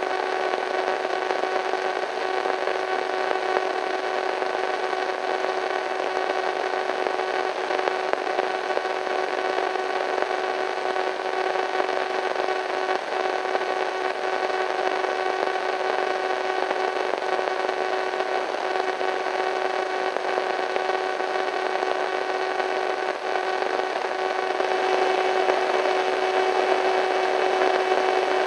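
Slightly eerie radio static: a steady hiss with several steady humming tones running through it, getting a little louder about 25 seconds in.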